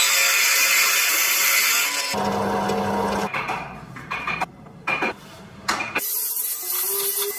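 A drill press boring into a wooden wheel with a Forstner bit, a bright steady cutting hiss, followed by a steady motor hum and a few choppy cuts. From about six seconds in, a small high-speed handheld rotary tool cuts grooves into wood.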